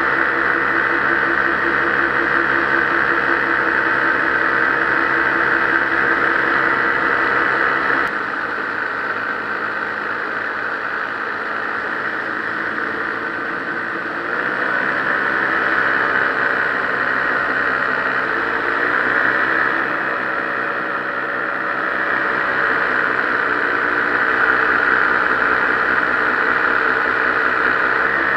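A paramotor's engine and propeller running steadily in flight. It is throttled back about eight seconds in, opened up again around halfway through, and its pitch wavers a little later on.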